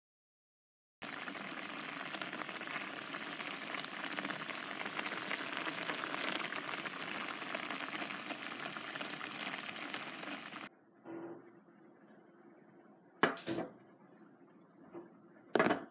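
Leftover rice frying in a pan with soy sauce and sesame oil: a steady crackling sizzle for about ten seconds that cuts off suddenly. Two sharp knocks follow a couple of seconds apart.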